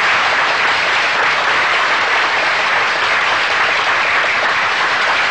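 Audience applauding, a steady, loud wash of clapping.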